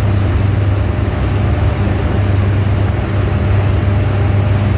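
Boat motor running steadily while underway: a constant low drone under a loud, even rushing hiss of wind and water.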